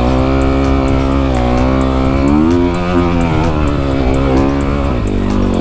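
Honda CRF250 dirt bike's single-cylinder four-stroke engine running under load on a steep uphill climb. Its pitch rises a little over two seconds in and drops back near the end.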